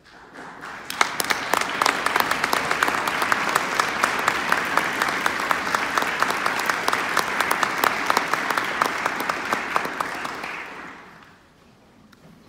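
Audience applauding in a concert hall, with individual sharp claps standing out close by. It swells within the first second, holds steady, then dies away about eleven seconds in.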